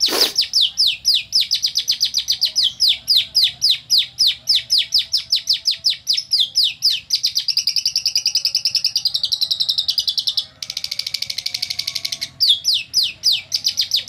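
Lovebird singing a long, unbroken song filled with canary phrases: a rapid run of high down-sliding notes, about five a second. About ten and a half seconds in it breaks into a fast buzzy trill, then the sliding notes resume.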